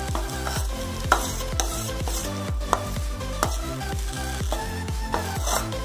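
Steel spoon stirring and scraping thick moong dal paste in ghee in a stainless-steel pan, the ghee sizzling, with a sharp clink of spoon on pan every second or so. Background music plays underneath.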